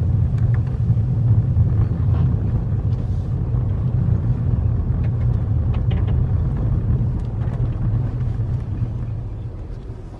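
Car driving, a steady low rumble of engine and road heard from inside the cabin, fading over the last few seconds.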